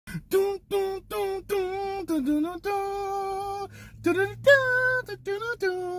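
A voice singing alone, with no instruments, in a high register: a run of short sung notes with a few longer held ones, the longest held for about a second near the middle.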